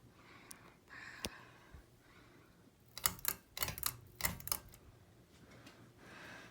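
Hunter Eclipse ceiling fan running with a faint low hum, a single sharp click a little over a second in, and a quick run of sharp clicks and rattles around the middle.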